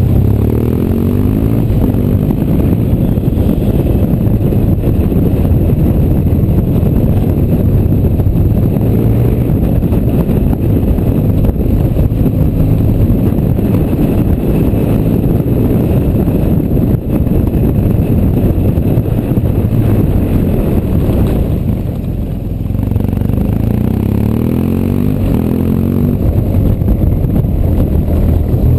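BMW R1200GS boxer-twin engine running steadily under way, over the rumble of the tyres on a cobblestone road. The engine note rises and falls near the start and again a little after halfway, and dips briefly just before that second change.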